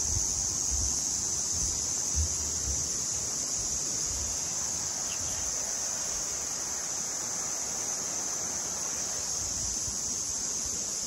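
Steady, high-pitched chorus of insects in summer woodland. Low wind buffeting on the microphone comes mostly in the first few seconds.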